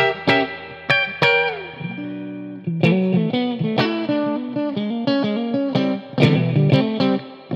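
Squier Made in Japan Strat-style electric guitar on its bridge humbucker pickup, played clean through a Marshall AVT Tribute amplifier. Picked notes and chords, one note sliding down about a second and a half in, a held chord, then a quick run of notes.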